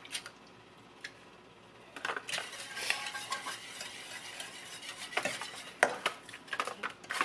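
A wire whisk stirring liquid sauce in a stainless steel saucepan, scraping and clinking against the metal pan. The whisking starts about two seconds in, after a few light clicks.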